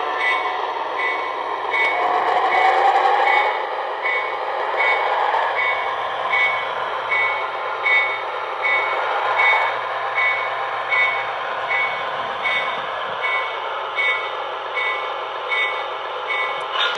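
Weaver brass Little Joe O-scale electric locomotive's TMCC sound system playing a repeating short electronic tone, about three every two seconds, over a steady running hum from its speaker.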